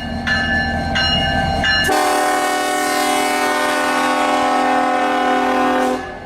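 Dubbed-in locomotive sound effects: a bell dings about every two-thirds of a second over a low engine rumble, then about two seconds in a multi-chime train air horn sounds one long blast of about four seconds and cuts off sharply.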